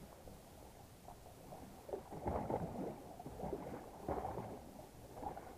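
Muffled rumbling noise from a body-worn camera on a boat at sea. It swells twice, about two seconds in and again about four seconds in.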